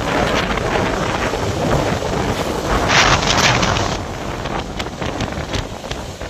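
Wind buffeting the microphone over rushing floodwater, a steady roar of noise with a louder gust or surge about three seconds in.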